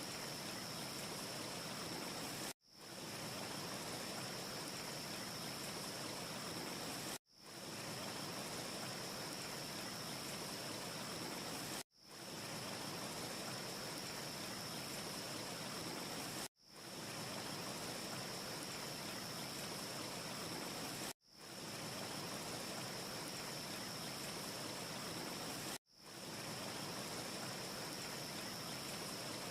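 A steady rushing hiss of ambience noise, like wind or running water, with a thin high whine running through it and no crackles. It cuts out abruptly six times, about every four and a half seconds, fading back in within about half a second each time: a short loop restarting.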